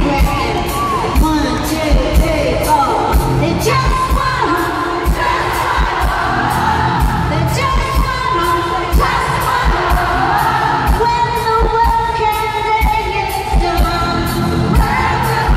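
A live pop-rock band performance: a woman singing lead into a microphone over a steady drum beat, with guitar and bass, heard from within the audience through amplified speakers.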